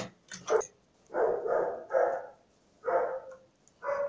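A dog barking repeatedly, about six short barks, several in quick succession.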